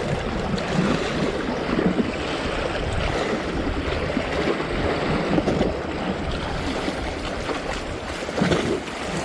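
Sea waves washing against a rocky shore, with strong wind buffeting the microphone in a steady rush and low rumble.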